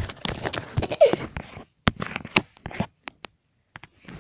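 Close handling noise: rustling with several sharp clicks, and a short falling squeak about a second in.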